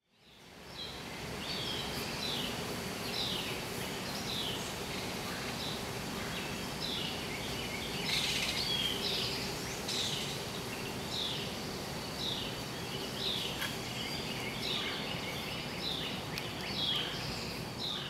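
A small songbird giving short, downward-slurred call notes, repeated about once a second, over a steady outdoor background hiss.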